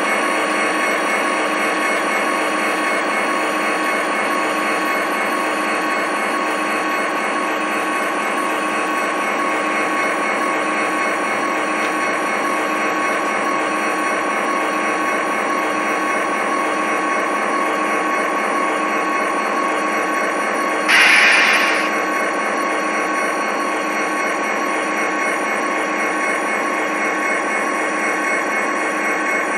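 Model railroad diesel locomotives hauling a coal train, running with a steady whirring drone that holds several fixed tones. About two-thirds of the way through there is a brief, louder burst lasting about a second.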